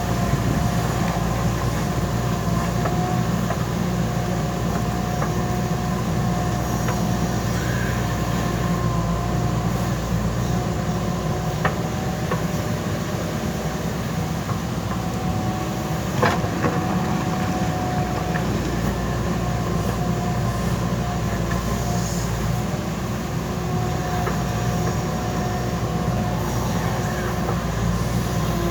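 JCB backhoe loader's diesel engine running steadily while working, with a thin whine that comes and goes. Two sharp knocks stand out, about a third of the way in and just past halfway.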